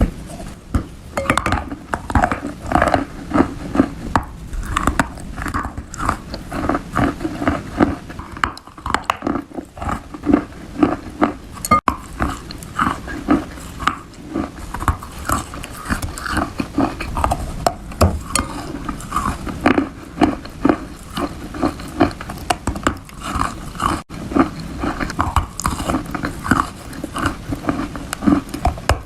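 Close-miked biting and chewing of wet chalk-like material: a fast, continuous run of moist crunches, a few a second, breaking off sharply twice for an instant.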